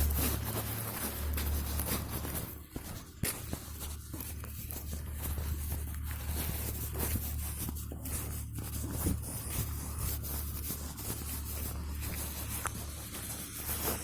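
Rain falling: a steady hiss dotted with many separate drop taps, over a low rumble.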